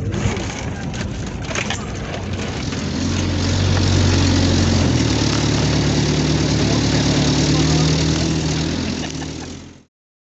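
A vehicle engine running with a steady hum over a hiss. It gets louder about three seconds in, and the sound cuts off abruptly just before the end.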